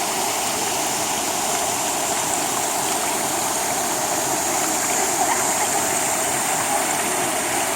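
Waterfall rushing: a steady, even roar of falling and flowing water.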